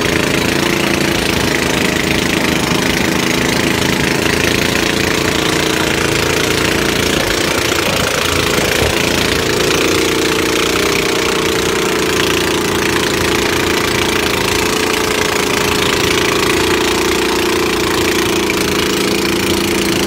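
A small wooden passenger boat's engine running steadily under way, a continuous low drone with water and wind noise beneath it.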